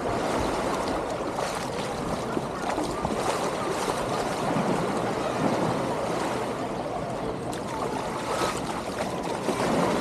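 Small waves washing steadily onto a sandy beach, mixed with the indistinct chatter of a crowded beach.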